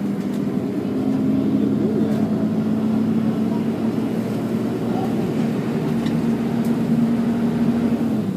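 Volvo B10BLE bus heard from inside the saloon while under way: a steady engine and drivetrain drone with its engine cooling fan running. The drone's pitch drops slightly near the end.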